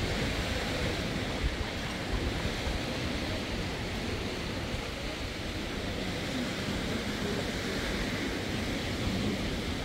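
Wind buffeting the microphone over the steady wash of sea surf on a beach, an even rushing noise with gusty rumbling underneath.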